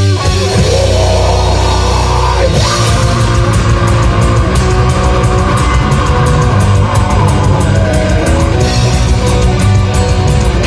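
Black metal band playing loudly at rehearsal: distorted electric guitars, bass and drums. About two and a half seconds in, the drums pick up into fast, dense cymbal hits.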